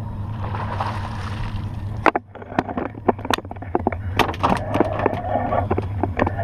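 Fishing boat on the water: a steady low hum under the splashing of a flounder being lifted in a landing net, then, after a cut about two seconds in, a run of irregular sharp clicks and taps.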